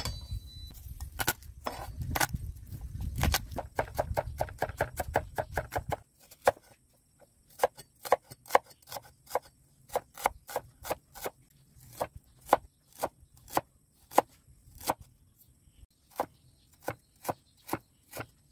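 Cleaver chopping garlic and red onion on an end-grain wooden cutting board, knocking on the board. There is a fast run of strikes over a low rumble during the first six seconds, then a sudden change to cleaner, spaced-out chops, two or three a second.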